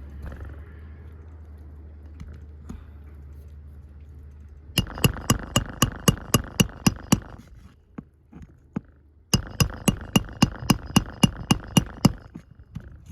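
Hammer striking metal in two quick runs of rapid, evenly spaced ringing blows, about five a second, the first starting about five seconds in and the second about nine seconds in, as nails are worked in the shingle roof.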